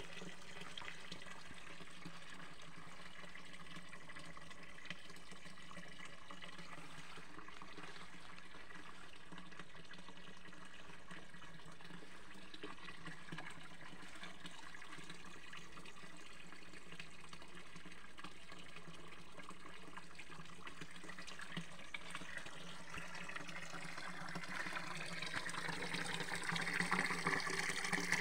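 Spring water pouring steadily in a thin stream from a rusty pipe spout of a stone fountain into the pool beneath. It grows louder near the end.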